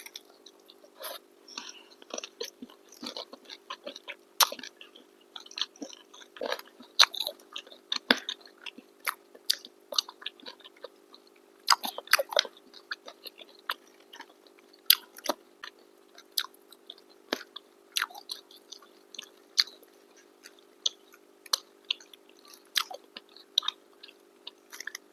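Close-miked chewing and mouth sounds of people eating chicken biryani and kebabs: irregular wet smacks and clicks over a faint steady hum.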